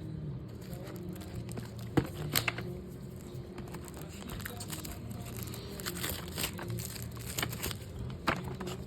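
A Yu-Gi-Oh booster pack's wrapper crinkling as it is handled and torn open by hand, with a few sharp crackles.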